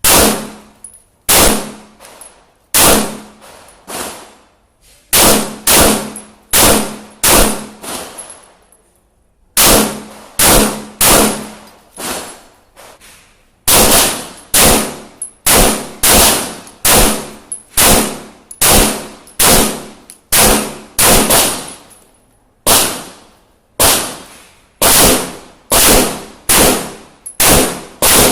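A 9mm Glock 17 pistol in a KPOS Scout carbine chassis being fired semi-automatically, about thirty single shots in strings at roughly one or two a second with a few short pauses. Each shot rings out briefly.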